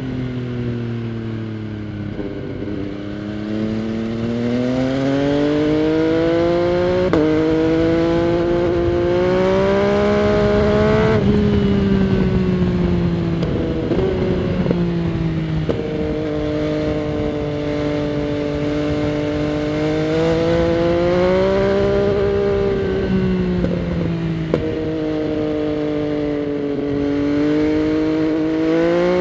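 MV Agusta Dragster 800 RR's three-cylinder engine through a Fresco Trio Corse exhaust fitted with its dB killer, heard from the rider's seat. The revs sag, then climb for several seconds to an abrupt drop at a gear change, and keep rising and falling with the throttle and further shifts through the rest.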